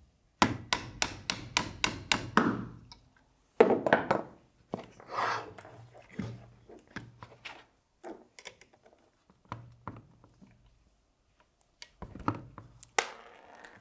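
Tools tapping and knocking on the airsoft rifle's receiver as a takedown pin is pushed out: a quick run of sharp taps, a louder knock about three and a half seconds in, then scattered clicks and knocks with pauses, and another sharp knock near the end.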